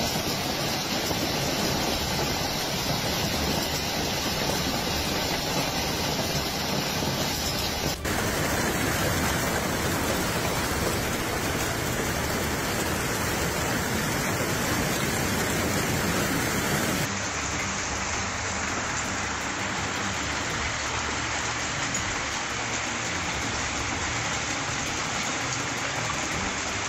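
Hail and heavy rain pelting down, a dense steady hiss. The sound changes abruptly twice, about a third of the way in and again a little past halfway.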